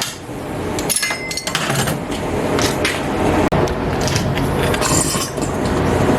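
Flux-core MIG welder arc crackling steadily while welding a steel plate onto an axle shaft, with a momentary break about three and a half seconds in.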